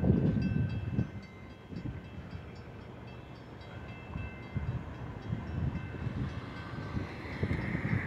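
Railroad crossing bell ringing steadily at about three strikes a second, over the low rumble of a slow-moving Metra commuter train. Gusts of wind buffet the microphone now and then.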